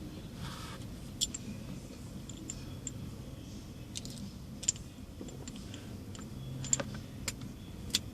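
Light metallic clicks and ticks, scattered irregularly, from a new ignition lock cylinder and its key being handled and fitted, over a low steady hum.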